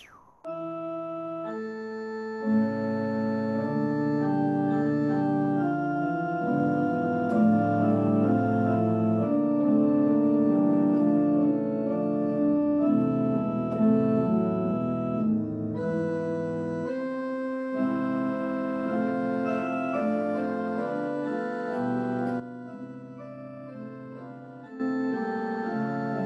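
Keyboard with an organ sound playing slow, held chords. The notes sustain without dying away, and the music drops briefly just after the start and plays more softly for a few seconds near the end.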